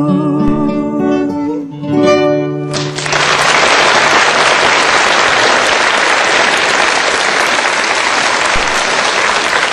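A singer holds the final note of a romance over acoustic guitar, closed by a guitar strum; about three seconds in, a studio audience breaks into steady applause that lasts to the end.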